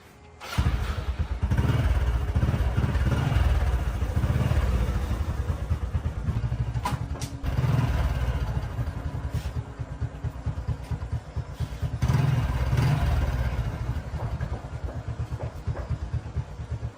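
Motorcycle engine running and revved up several times, its rapid firing pulses swelling and easing back.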